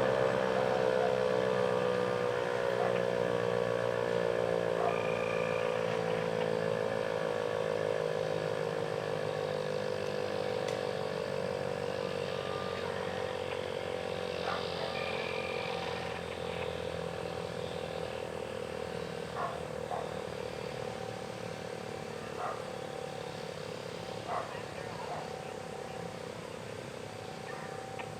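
ASC T-128 outdoor warning siren coasting down after a growl test: a low tone that slowly falls in pitch and fades as the rotor spins down. A few short, high chirps sound over it now and then.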